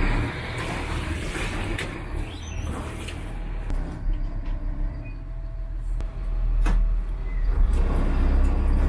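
Twin Caterpillar diesel engines of a 43-foot sportfishing yacht running at low speed, a steady deep rumble, with a couple of sharp clicks or knocks about two seconds in and again near the seven-second mark.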